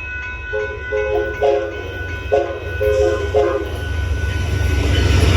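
Amtrak Texas Eagle locomotive horn sounding two quick sets of three short toots, over a grade-crossing bell ringing in steady rapid pulses. The train's low rumble grows louder near the end as it draws close.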